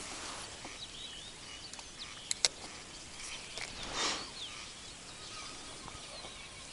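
Small birds chirping faintly over a quiet outdoor background, with two sharp clicks about two and a half seconds in and a brief rustling swish about four seconds in.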